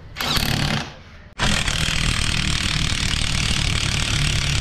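Cordless power drill spinning a socket: a short burst on an ATV wheel nut, then, from about a second and a half in, a longer steady run turning the screw of a scissor jack.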